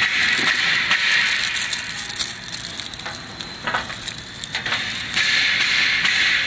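Clear plastic wrapping on a door handle crinkling and rustling as it is handled, with a few light clicks. It comes in two stretches: one at the start and one from about five seconds in.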